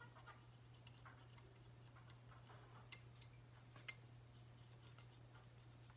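Faint scattered clicks and light scraping from a small hand tool scraping old silicone sealant off the EverClean's housing, over a low steady hum.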